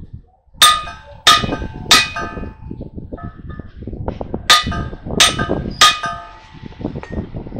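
A hammer striking steel on a truck steering knuckle as the kingpin is driven in. Two sets of three ringing metal blows come about two-thirds of a second apart, with lighter knocks between the sets.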